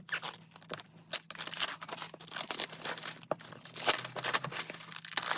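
Wrapping on a boxed manga set being torn open by hand from a corner: a run of irregular ripping and crinkling, with several louder tears.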